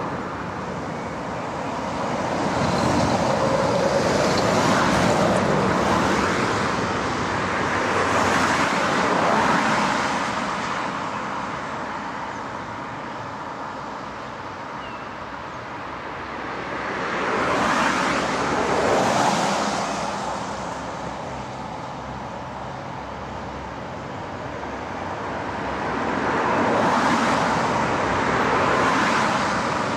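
Road traffic: cars and vans passing one after another, each a swell of tyre and engine noise that rises and falls away, four times in all. Heavy trucks are drawing near toward the end.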